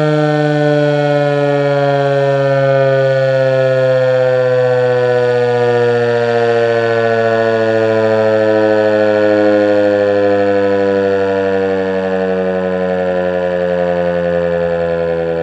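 American Signal Corporation T-128 electromechanical outdoor warning siren sounding loud and steady during its monthly test, its pitch sliding slowly downward throughout.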